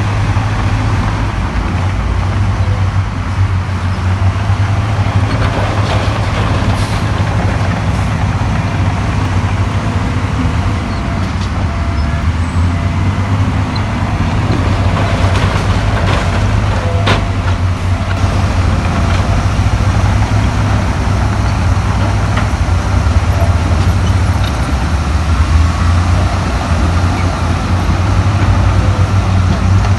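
Heavy diesel engine of earthmoving machinery running steadily with a deep, low drone, with a sharp knock about halfway through.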